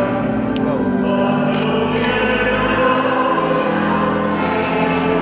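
Choir singing a church hymn in long, held notes.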